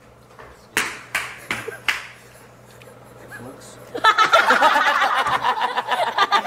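Four sharp smacks in quick succession, then a group of people bursting out laughing and chattering about four seconds in.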